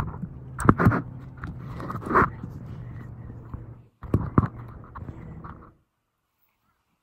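Rumbling and knocking from a handheld phone microphone as it is carried and moved, with several sharp knocks, then the sound cuts out to silence near the end.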